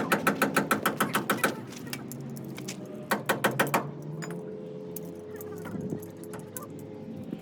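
Rapid, evenly spaced metallic clicking, about seven clicks a second, in a run that stops about a second and a half in and a shorter run near the middle, over a faint steady hum.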